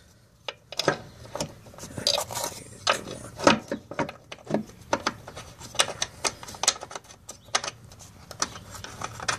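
Irregular metal clicks and clinks of bolts being handled and threaded by hand into an engine mount bracket.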